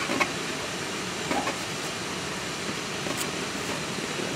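Steady room hiss with a few faint clicks and ticks as braided picture-hanging wire is twisted back around itself by hand.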